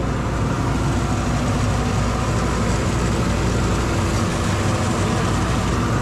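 Rice mill machinery running steadily: a loud, even mechanical drone with a dense rushing noise over it.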